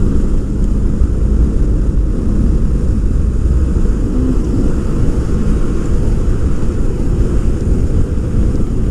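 Steady riding noise from a moving motorcycle: heavy wind rush on the rider's microphone over engine and road noise, a loud, even low rumble.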